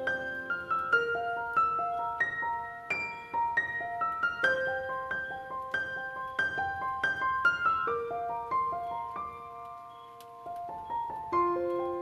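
Background piano music: a gentle melody of single struck notes and chords, each note ringing and fading, with a softer spell a little before the end.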